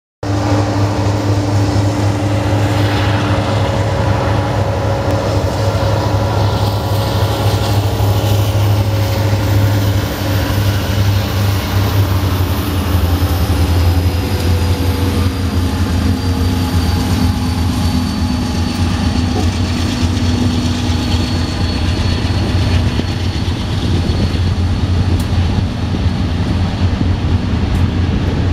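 A consist of diesel-electric freight locomotives passing close by, their engines running with a loud, steady low drone. Some of the engine tones slowly drop in pitch partway through.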